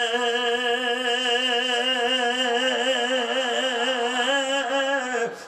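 A man's voice holding one long sung note with a steady vibrato, the drawn-out melodic cry of a Bangla waz preacher stretching the last syllable of a called-out phrase. It stops about five seconds in.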